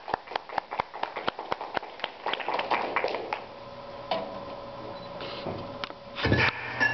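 Scattered applause from a small audience, dying away after about three seconds. Near the end, a sudden louder sound starts.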